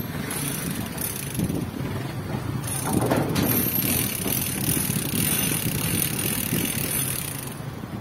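Small dump truck moving off from close by, its engine running under load and getting louder about three seconds in, over general road traffic.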